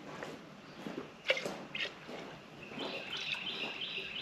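Small metal cans of wood stain being handled and poured into a bucket, with a couple of light clinks about a second in. In the second half a high chirping call repeats a few times a second.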